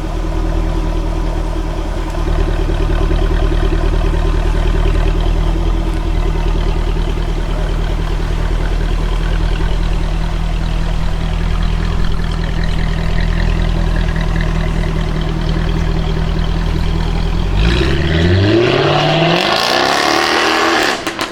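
Jaguar F-Type R's supercharged V8 running at a steady idle for most of the time, then revved hard near the end, its engine note climbing quickly in pitch.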